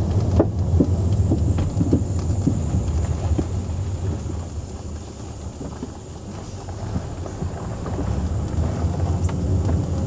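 Road and wind rumble inside a moving 2001 Volkswagen Jetta GLX with its rear windows down, with scattered light knocks, most of them in the first couple of seconds. The knocks are the thumping from the left rear of the car that the owner is trying to trace and has not yet found a cause for.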